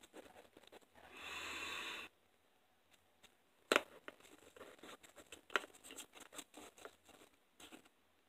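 Hand colouring and handling noise: a steady scratching stroke about a second in, then a sharp click and a run of small scratches and taps as the item is coloured in black.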